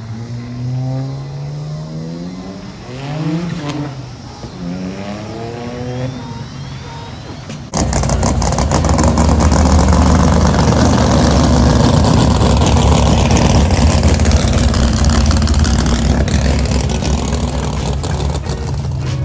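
Car engine revving up and down in short blips, then about eight seconds in it jumps suddenly to full throttle and stays very loud and steady for the rest of the time.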